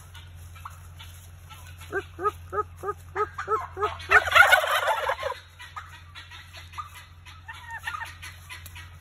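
Wild turkeys calling: a run of about eight short, evenly spaced calls, then a loud gobble about four seconds in, with softer scattered calls near the end.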